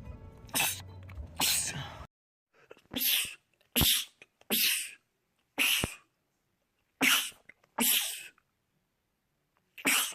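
Men sneezing in rapid fits: about nine short, sharp sneezes in quick succession. The first two are over a low room hum that stops about two seconds in; the rest are against a silent background.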